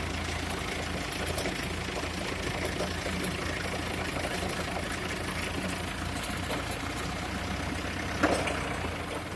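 JCB backhoe loader's diesel engine running steadily, with a single short clunk about eight seconds in.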